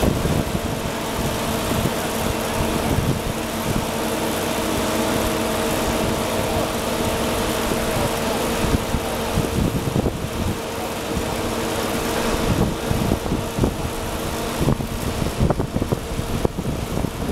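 Boat travel lift's engine running steadily while it lowers a sailboat in its slings, a steady hum that fades about halfway through. Wind buffets the microphone near the end.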